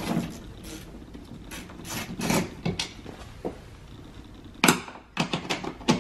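Scattered clicks and clatter of a socket tool turning out 7 mm screws from a car door's speaker housing, with one sharp knock a little before five seconds in.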